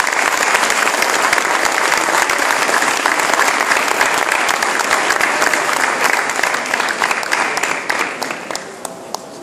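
A large crowd applauding, starting suddenly and holding steady, then thinning out near the end to a few scattered claps.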